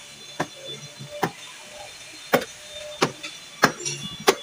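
Plastic retaining clips of a Toyota Hiace's rear interior side panel snapping loose as the panel is pried off by hand: six sharp snaps roughly a second apart, the loudest in the second half.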